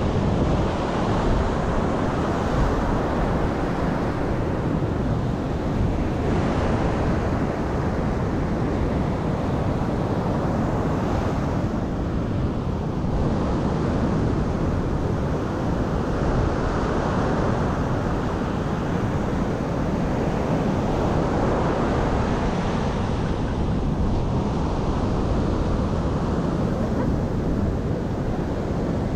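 Ocean surf washing onto a sandy beach, a steady rush of breaking waves mixed with wind buffeting the microphone.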